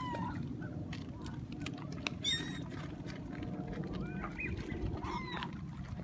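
Gulls calling overhead: a few short, high calls that bend in pitch, the loudest about two seconds in, over a steady low rumble.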